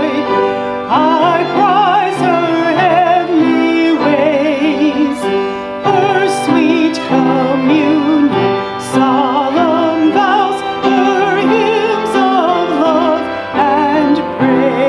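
A hymn sung with wide vibrato over steady instrumental accompaniment, several sung lines moving together.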